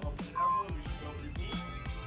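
Background electronic music with a steady beat: booming bass drum hits that drop in pitch, and a short beep about half a second in.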